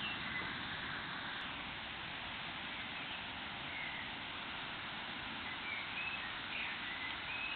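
Steady rain, an even hiss, with a small bird giving short chirps several times over it.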